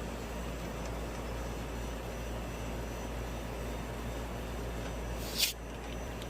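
Steady rushing noise with a low hum, typical of an outdoor air-conditioner condensing unit running. A brief sharp hiss about five and a half seconds in.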